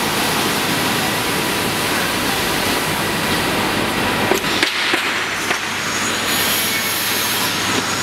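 Bonnell spring assembly machine running: a steady, dense mechanical clatter and hiss, with a few sharp metallic clicks about halfway through.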